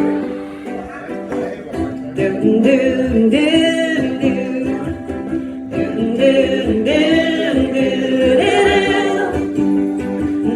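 Ukulele strumming chords in a live song, with voices singing over it from about two seconds in.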